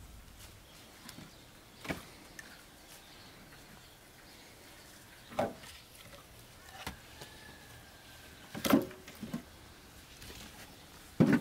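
Split firewood logs knocking together as they are lifted off a woodpile and dropped into a wheelbarrow: about six separate wooden clunks, the loudest a little past the middle and near the end.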